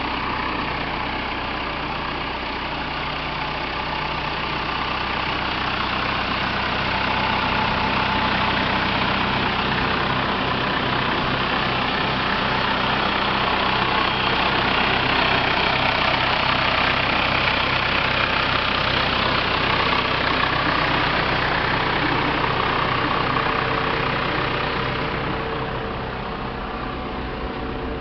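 Ford/Versatile 276 tractor's four-cylinder diesel engine idling steadily. It grows louder through the middle and eases off near the end.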